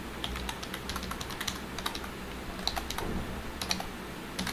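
Typing on a computer keyboard: a run of uneven, quick keystroke clicks.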